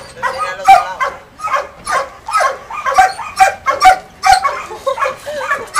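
Dogs barking over and over, short barks coming about two or three a second.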